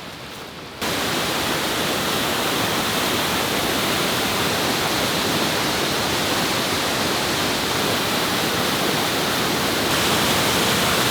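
Waterfall rushing: a loud, steady, even wash of falling water that cuts in suddenly about a second in.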